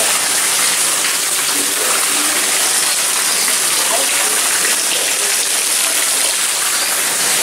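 Steady rush of running water, with faint voices of people under it.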